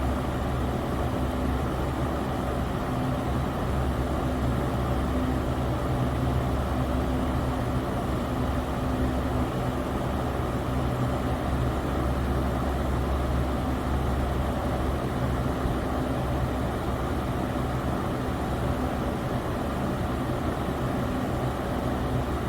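Electric fan running steadily: a constant whooshing hum with a low motor drone and no change in speed.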